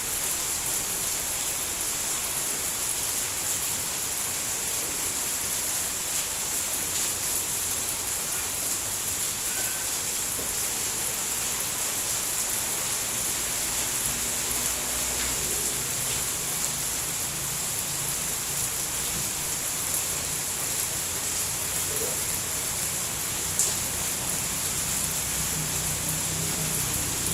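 Steady rain falling, an even hiss, with one sharp drip-like tap a little after twenty-three seconds in. A low rumble rises beneath it in the last few seconds.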